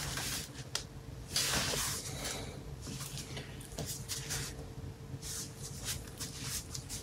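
Soft rustling and shuffling of clothing as a person shifts about on their feet, in a series of short swishes with a couple of light taps. A faint steady hum runs underneath.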